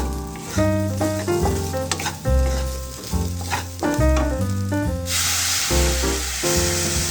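Background music with a steady bass line, over food stir-frying in hot oil. The sizzle gets suddenly louder about five seconds in.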